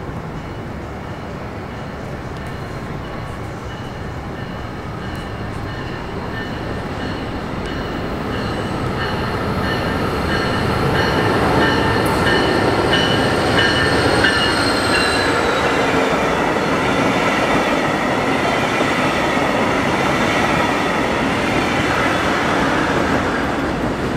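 Brightline passenger train, led by a Siemens Charger diesel locomotive, approaching and passing close by, growing louder through the first half and then holding steady as the cars go past. A grade-crossing bell rings in quick, even strokes through the middle.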